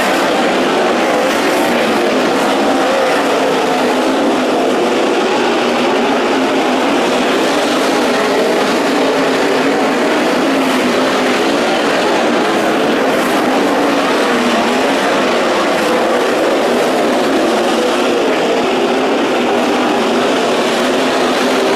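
A field of sprint cars racing on a dirt oval, their engines blending into one loud, steady drone that never drops away.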